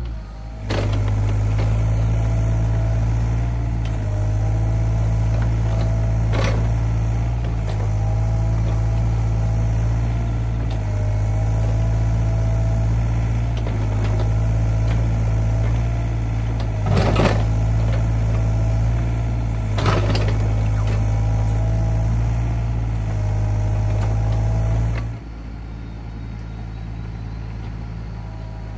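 SANY SY35U mini excavator's diesel engine running steadily under load, with a wavering hydraulic whine over it as the arm works. Three sharp knocks stand out as the bucket strikes the ground, and a few seconds before the end the whole sound drops suddenly to a quieter, more distant hum.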